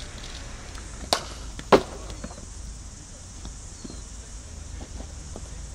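Cricket bat and ball in net practice: two sharp cracks about half a second apart, the second the louder, over a steady low background rumble.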